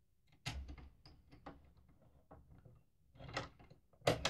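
Small, faint clicks and knocks of a bobbin case being fitted back into the bobbin area of a Brother PQ1500SL sewing machine, with the sharpest click near the end.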